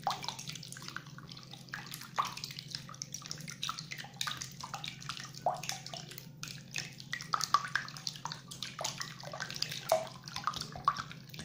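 Silicone whisk beating eggs, oil and lemon concentrate in a glass bowl: quick, irregular splashing and sloshing of the liquid.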